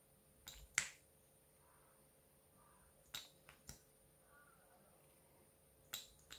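Sharp little clicks from a plastic makeup tube, its cap and its applicator wand being handled, over near silence. Two come about half a second in, three around three seconds in, and two near the end.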